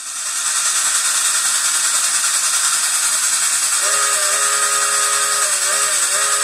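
Electronic steam-locomotive sound from an MRC Sound, Power & Light 9001 train controller, played through a loose speaker. A steady hiss comes up loud as the volume is turned up. About four seconds in, a chime-like steam whistle of several steady tones sounds and holds, wavering briefly near the end.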